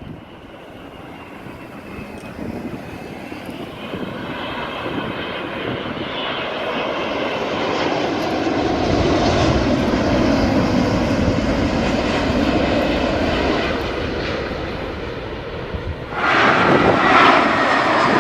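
Jet airliner engines on approach to land, the rumble and whine growing steadily louder as the aircraft nears, the whine slipping slightly lower in pitch. About two seconds before the end a sudden, louder burst of noise sets in.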